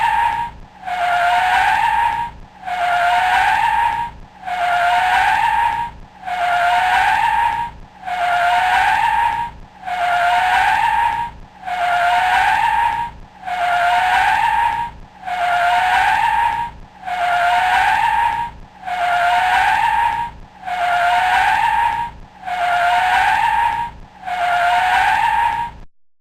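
Car tyres screeching in a braking skid, the same squeal repeated about every two seconds. Each squeal dips slightly in pitch and rises back. It stops near the end.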